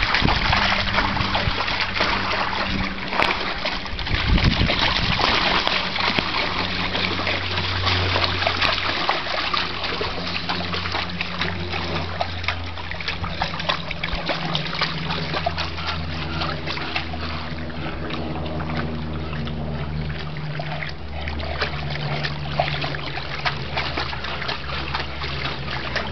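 A bulldog wading around a plastic kiddie pool, its legs churning the water in a continuous run of splashing and sloshing, heaviest in the first few seconds. A low drone runs underneath from about six seconds in.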